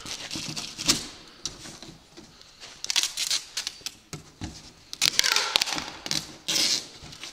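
Packing tape being pulled off the roll in several short pulls and pressed onto a cardboard box, with cardboard rustling and tapping as the box is handled; the loudest pulls come about five to seven seconds in.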